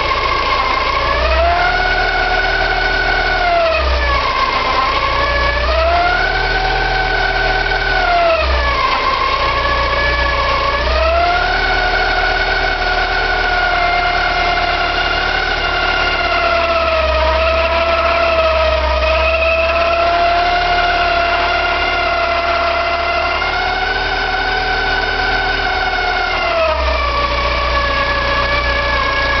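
Porsche 944 2.5-litre eight-valve four-cylinder engine running, with a whining squeal whose pitch rises and falls several times as the engine speed changes. It is a hard-to-locate noise from the front of the engine, which the owner wonders may be the oil pump or the balance shafts.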